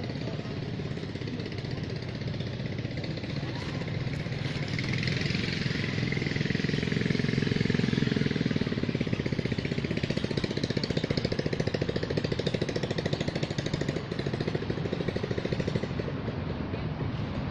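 An engine running steadily with a rapid throb, growing louder about five seconds in and staying up.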